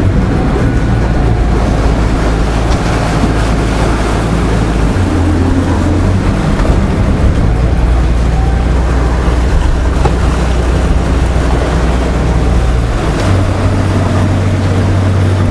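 Sailing yacht's inboard auxiliary engine running at low speed while manoeuvring into a berth, its low steady note shifting a few times as the speed changes.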